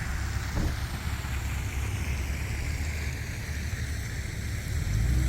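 Vehicle traffic noise: a low rumble with a hiss that slowly dips in pitch and rises again, as of a car passing.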